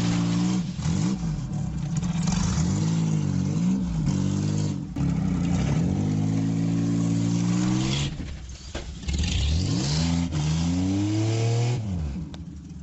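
An engine revving up and down over and over, its pitch rising and falling every second or two, dropping away briefly, then climbing again before it fades near the end.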